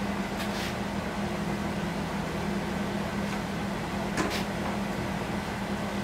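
A steady low mechanical hum, with a few faint clicks over it.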